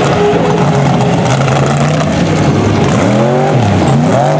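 Mega truck's big engine running at high revs, its pitch climbing about three seconds in and again near the end as the throttle is worked.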